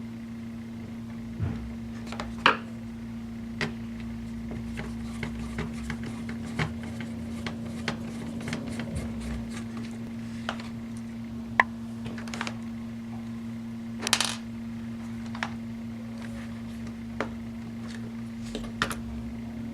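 Irregular small clicks, taps and light clatters of an Asus U50F laptop being taken apart by hand: screws, a screwdriver and plastic parts being handled and set down. There is a short clatter about fourteen seconds in, all over a steady low hum.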